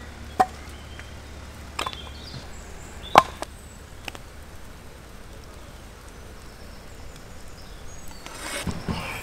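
Open wood fire burning outdoors, with a steady low background broken by a few sharp clicks and knocks, the loudest about three seconds in, and a short rustling, handling noise near the end.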